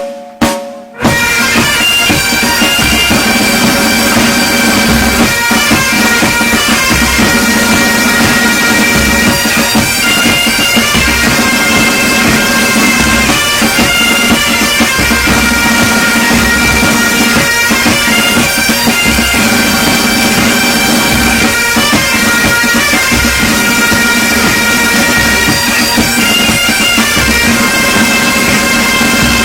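Military pipe band playing: bagpipes sound a steady drone under a sustained melody, with drums beating underneath. The playing starts in full about a second in, after two short bursts.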